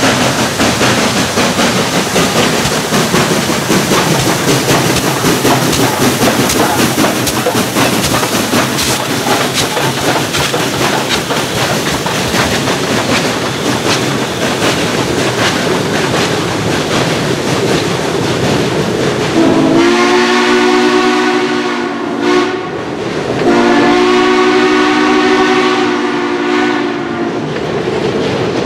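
Western Maryland 1309, a 2-6-6-2 Mallet steam locomotive, working hard as it passes close by, its exhaust beats over the rumble of the train, then passenger coaches roll past with a clickety-clack. Near the end a train's multi-note chime warning sounds in two long blasts.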